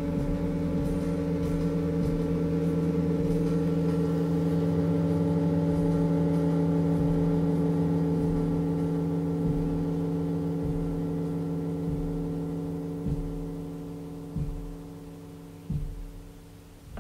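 Drone music: a steady, sustained tone on one low pitch with its overtones. It holds level, then slowly fades over the last five seconds or so, with a few soft low thumps near the end.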